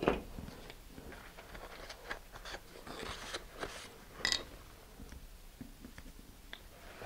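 Paper towel rustling and crinkling softly as it is handled and folded, with small scattered clicks and a sharper crinkle about four seconds in.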